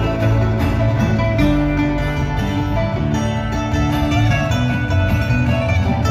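Live bluegrass band playing: banjo, acoustic guitar, fiddle, mandolin and upright bass together, with a strong, steady bass line.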